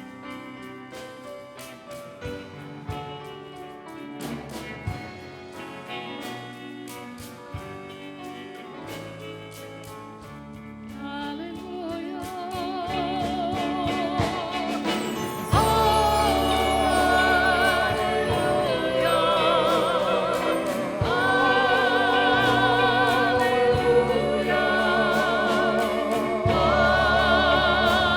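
Worship music: a quiet instrumental passage of plucked notes and light taps builds up, and about halfway through the full band comes in with singers holding wavering, vibrato-laden notes.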